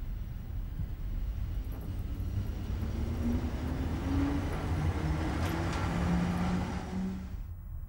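SBB Re 6/6 electric locomotive hauling a train past at low speed: a low rumble of wheels and running gear with a hum from its traction motors that grows louder as it passes, then stops abruptly near the end.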